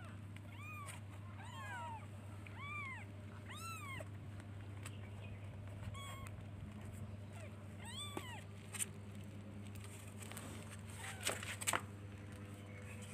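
Very young kittens mewing: short, high cries that rise and fall in pitch, about one a second for the first eight seconds, calling for their mother. A steady low hum lies under them, and a few sharp knocks come near the end.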